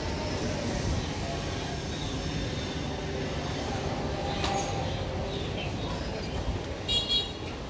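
Busy market background: a steady low rumble of vehicles and machinery, a sharp click about four and a half seconds in, and a brief high-pitched sound with a few stacked tones about seven seconds in.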